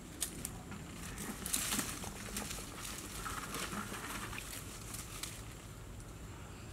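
Leaves and twigs of dense brush rustling and snapping as a person pushes through it, with scattered clicks and a busier burst of rustling about a second and a half in.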